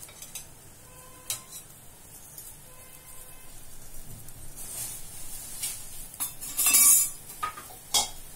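Metal ladle and steel kadai clinking a few times, with a louder scrape about seven seconds in, over a faint sizzle from the simmering gravy.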